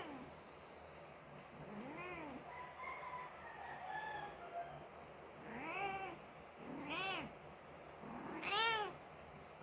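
Persian mother cat meowing four times, each call rising then falling in pitch, the last the loudest; the owner takes these calls for her crying over her dead kitten.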